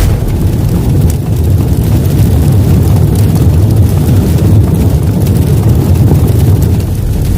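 Cinematic intro sound effect: a loud, deep, steady rumble.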